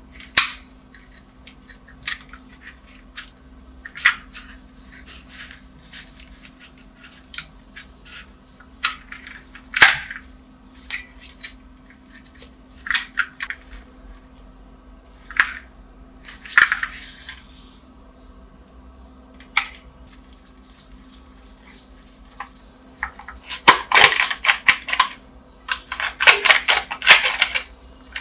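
Dried crust cracking and crumbling off a battered model car as it is squeezed and turned in gloved hands, with small plastic and metal clicks: scattered sharp crackles, then a denser run of crackling near the end.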